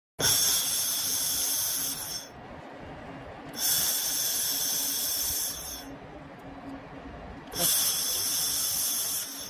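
Handheld fiber laser welder firing in three bursts of about two seconds each, a high hiss that starts and stops sharply, with quieter gaps between.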